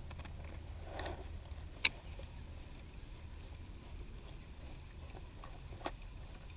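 Faint steady low rumble, with one sharp click about two seconds in and a fainter click near the end.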